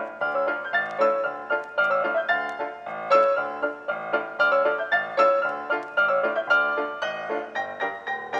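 Background piano music: a piano playing a steady stream of notes that ring and fade.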